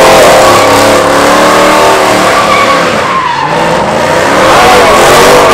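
A car spinning donuts: its engine is held at high revs, the pitch rising and falling, while its rear tyres squeal and smoke against the pavement.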